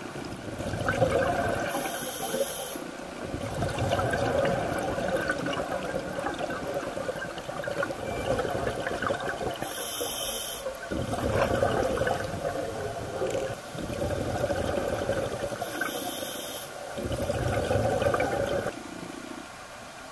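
Scuba diver breathing through a regulator underwater: three short hissing inhales, each followed by several seconds of rushing, bubbling exhalation.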